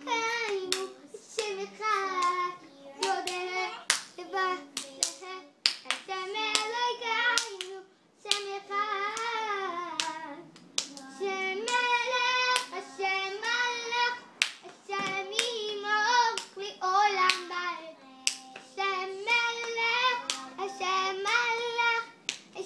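Toddler clapping hands, roughly one to two claps a second, while a high voice sings a tune along with the claps.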